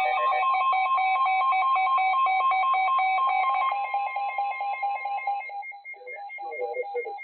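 Electronic beeping tones: several pitches pulsing together in a fast regular pattern, thinning about halfway through to a steady beeping on two pitches, with fainter sound underneath near the end.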